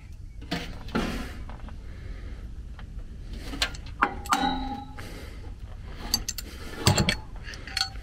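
Wrench and pliers clinking and clanking against the steel hub of a furnace blower wheel that is stuck on its motor shaft. The knocks are irregular and sharp, some with a brief metallic ring; the loudest come about four and seven seconds in.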